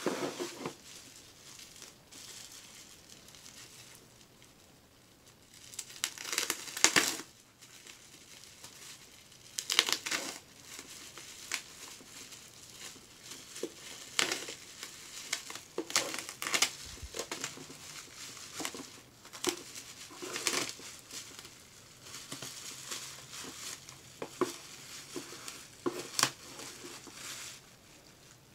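Bubble wrap crinkling and rustling in irregular crackly bursts as it is handled and slit open with a knife, with the loudest bursts about six and ten seconds in.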